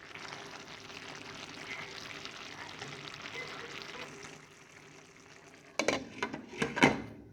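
Pot of chicken pelau, rice cooking in coconut milk and stock, sizzling as it is stirred; the sizzle drops away about four seconds in. Near the end come a few loud, sharp clatters.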